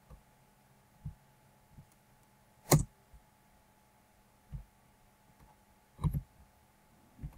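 A handful of scattered computer mouse clicks and soft thumps over a faint steady electrical hum, the sharpest click about a third of the way in and a quick double click near the end.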